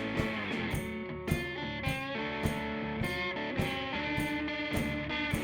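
Background music: guitar over a steady beat of about two strokes a second.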